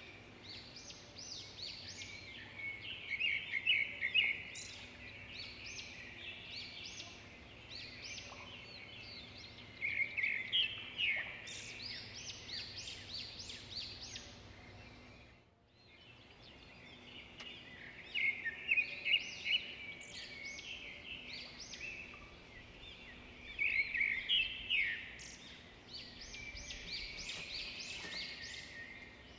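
A chorus of small birds chirping and twittering, many quick high calls overlapping, with a brief lull about halfway through.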